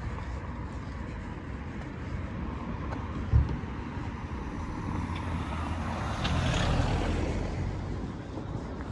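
A car passing, its noise swelling to a peak about two-thirds of the way through and then fading, over a steady low rumble. A single low thump a little over three seconds in.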